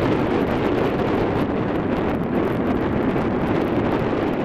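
Aérospatiale AS 332 Super Puma twin-turbine helicopter running on the ground with its rotors turning: a loud, steady noise, with wind buffeting the microphone.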